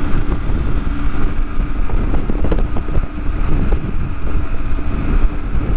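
Motorcycle running at a steady cruise, engine drone mixed with wind rush on the microphone.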